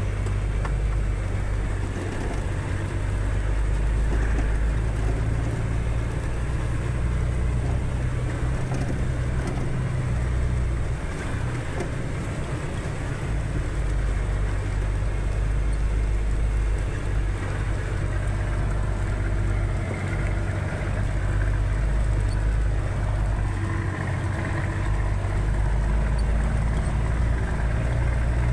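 A vehicle's engine running steadily while driving, a continuous low drone that eases slightly and picks up again at a few points.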